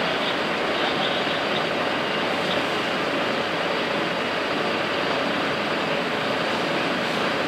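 MAN HLF 20 fire engine's diesel engine running steadily at the scene, driving its water pump to feed the charged hoses: a constant, even drone.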